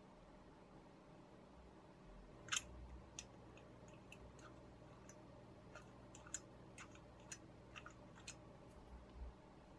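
Faint, irregular small clicks and taps of metal parts handled by hand: the brass tip being fitted onto the perforated steel barrel of an old electric soldering iron. The clicks start about two and a half seconds in, the first the loudest.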